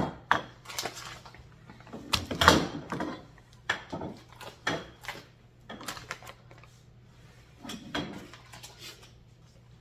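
Metal parts of a stand-mixer food grinder attachment being handled and fitted together: irregular clicks, clacks and knocks, the loudest about two and a half seconds in.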